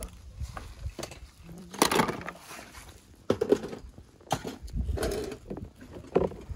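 Hands moving through thick soap foam in a plastic tub while handling a die-cast toy car: irregular short wet squishing and splashing sounds.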